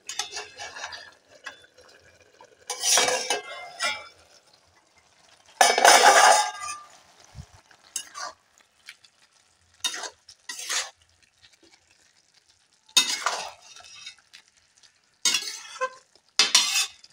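A metal spatula scraping and stirring a wet curry in a steel kadai in separate strokes, the loudest about six seconds in. Near the start the steel plate used as a lid clinks against the pan as it is lifted off.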